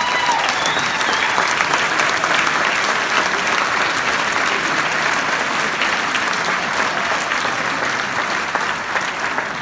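A large audience applauding steadily, the clapping easing off near the end.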